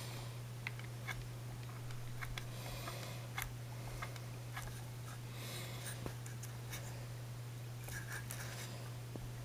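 Scattered light clicks and rustles from a model Formula 1 car's chassis being handled by hand, over a steady low hum.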